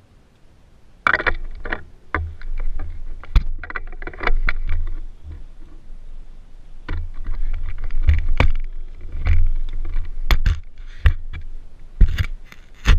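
Handling and movement noise close to the microphone: irregular knocks, clicks and rubbing with a low rumble, starting about a second in.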